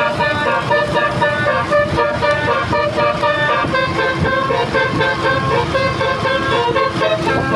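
Telolet horn on a bus: a set of multi-tone horns playing a tune of short notes that step from pitch to pitch, over a low rumble.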